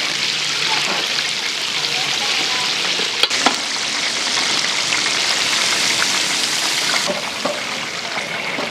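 Food deep-frying in hot oil, a steady sizzling hiss, with a couple of sharp clicks about three seconds in.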